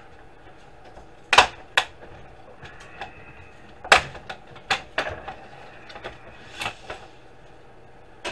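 A string of about six sharp clicks and snaps as a DVD drive's metal and plastic casing parts are pried and pulled apart by hand, the loudest two about a second and a half and four seconds in.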